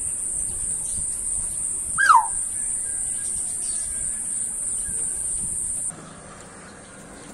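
A single short bird call sliding downward about two seconds in, over a steady high-pitched insect drone that cuts off suddenly near the end.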